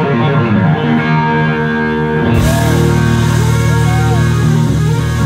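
Live rock band. An electric guitar plays sustained, bending notes on its own, then about two and a half seconds in the bass and drums come in heavily under it and the guitar keeps bending notes over the band.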